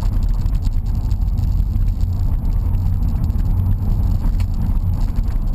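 Chevrolet Omega's 3.8-litre V6 engine and road noise heard from inside the cabin as the car drives along: a steady low rumble.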